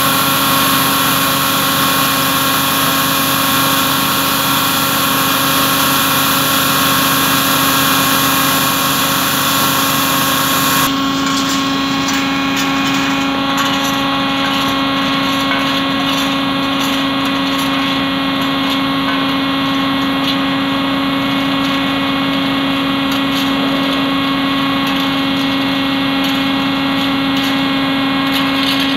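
An engine running steadily at idle with a constant hum, under a loud hiss that cuts off suddenly about eleven seconds in, leaving the engine running alone.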